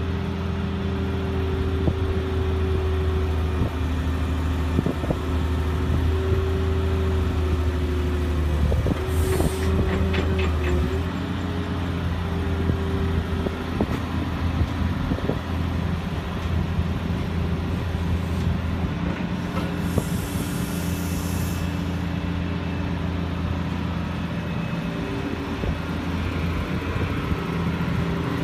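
Caterpillar 330CL excavator's C-9 diesel engine and hydraulics running steadily while the upper structure swings, the engine note shifting about eleven seconds in. Two short hisses come about nine and twenty seconds in.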